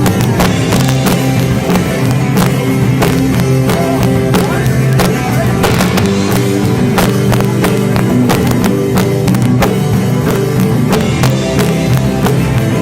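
A live band playing loud, with drums striking several times a second over sustained low guitar notes. It is harshly distorted, recorded through a cheap cell phone microphone.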